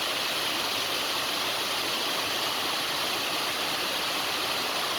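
Large mountain waterfall rushing in a steady, unbroken roar of falling water, in strong flow.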